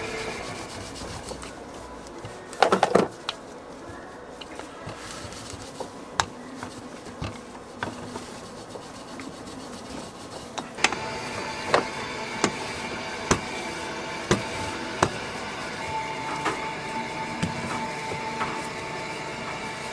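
Metal rolling pin rolling over laminated pastry dough on a stainless steel table. There is a cluster of loud knocks about three seconds in, and a run of sharp knocks, roughly one every three-quarters of a second, in the second half, over a steady background hum.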